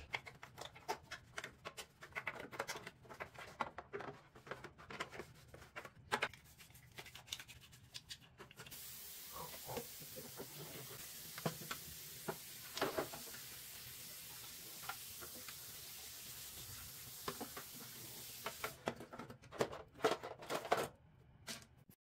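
Plastic vacuum-head housing being handled and scrubbed in soapy water, with scattered knocks and scrapes. About nine seconds in a tap starts running steadily for about ten seconds as the parts are rinsed, and more clatter of handling follows near the end.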